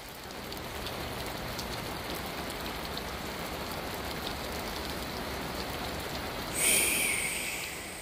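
Heavy rain falling steadily, with scattered drop ticks. Near the end a sudden, brief shrill high-pitched sound cuts in over the rain and fades.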